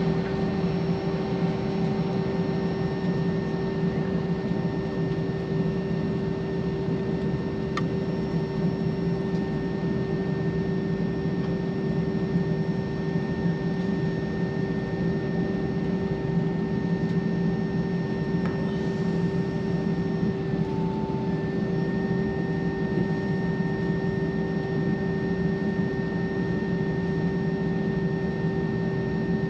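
Steady airliner cabin drone inside an Airbus A321: a constant low rumble with a steady hum and a thin whine on top, from the engines or air-conditioning running with no change in pitch.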